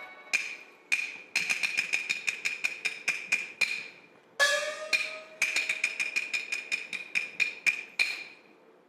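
Chinese opera percussion accompanying stage movement: runs of sharp, ringing wood-block strikes at several a second, with a gong struck once about halfway through.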